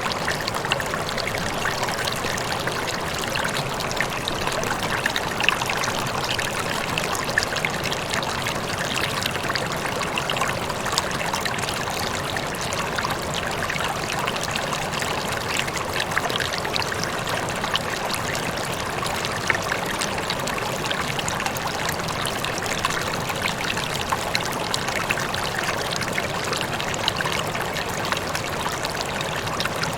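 Rippling water running steadily, a continuous trickling and babbling flow dotted with many small splashy ticks.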